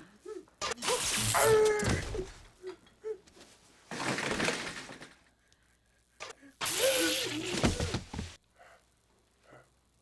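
Three electric-shock buzzes from a shock device, each about a second long, with a man yelping in pain during the first and third.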